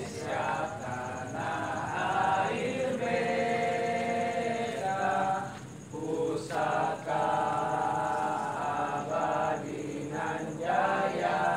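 A group of young scouts chanting a song together in unison, line by line, with short pauses between phrases.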